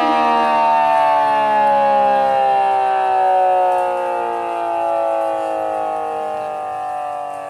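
ACA Cyclone 125 siren winding down, several tones falling slowly and steadily in pitch together as the sound gradually fades.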